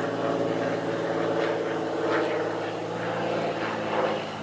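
A steady engine drone holding one pitch.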